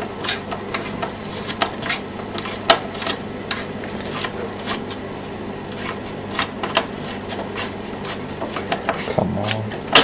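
CPU cooler mounting screws being undone by hand, giving irregular sharp clicks and rubbing, a few a second, over a steady low hum. The cooler is being loosened to test whether tightening it down onto the socket is what stops the motherboard from booting.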